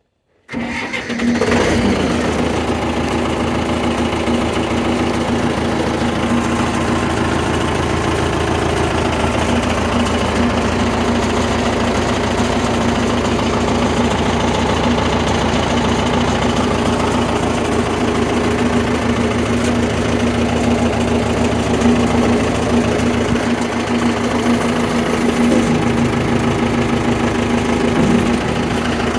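Case 580 backhoe's engine running steadily at idle, with an even, rapid rhythmic clatter. It comes in abruptly about half a second in and settles within a second.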